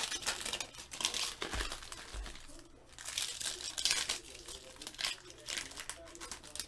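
Foil trading-card pack crinkling and tearing as it is ripped open by hand, in several crackly bursts about a second apart.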